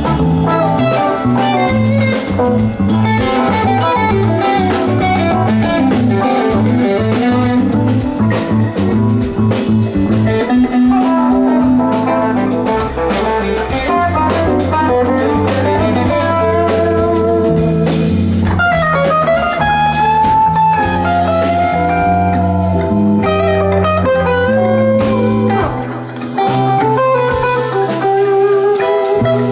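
Live rock band playing an instrumental passage: an electric guitar plays lead lines with bent notes over an electric bass and a drum kit with cymbals.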